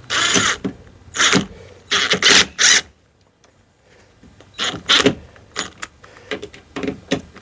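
Screws being driven into a metal door frame to fix a lock's striker plate, in a series of short grinding, creaking strokes that stop for about a second and a half midway, then go on in quicker, shorter strokes.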